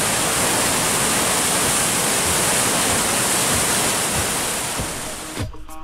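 Loud, steady rush of churning whitewater rapids. Near the end the water dips and music with a beat comes in.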